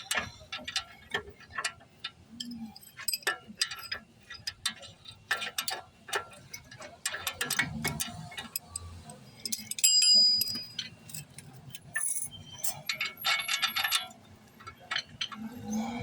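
Ratchet wrench clicking in quick runs as a loosened brake bolt is backed out, mixed with metal tool clinks; one clink about ten seconds in rings briefly.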